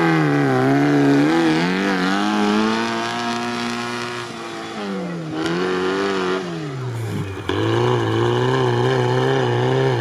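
Engine of a lifted ZAZ Zaporozhets off-road build revving up and down under load as it drives through deep sand; the pitch climbs and falls several times, dropping low about halfway through.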